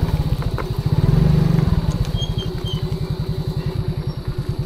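Motorcycle engine running at low revs with an even beat, about ten to twelve pulses a second. It is a little louder in the first second or so, then settles into a steady idle.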